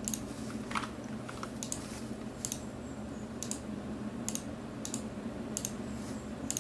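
Single sharp clicks of computer controls being pressed, about one a second, while a PC is being shut down.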